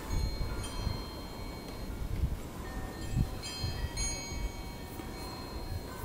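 Wind chimes ringing, with clusters of ringing notes struck about half a second in and again around three and a half to four seconds in, each slowly fading, over a low uneven rumble.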